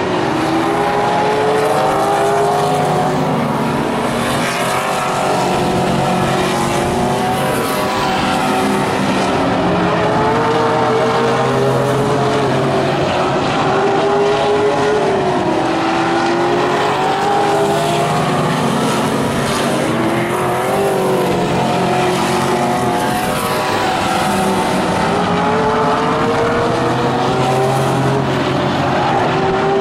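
Several vintage modified race cars running hard around a paved oval, their engines rising and falling in pitch over and over as the cars come off and back onto the throttle through the turns.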